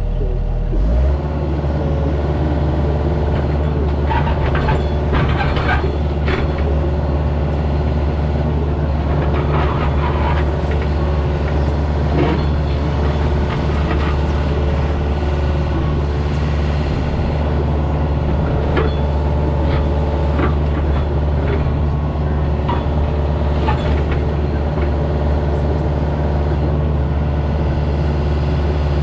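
Heavy machine's engine running steadily, its pitch stepping up about a second in as the throttle rises, with scattered clanks and knocks of work going on over it.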